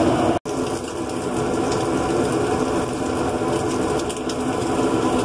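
Steady machine running noise, broken by a brief cut to silence about half a second in.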